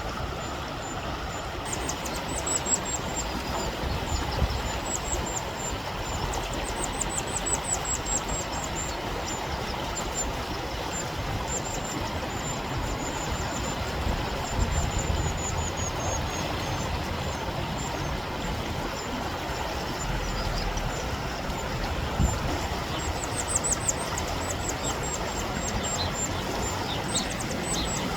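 Mountain stream rushing steadily, with several bouts of very high, thin calls from white-throated dippers, each a rapid series of short falling notes.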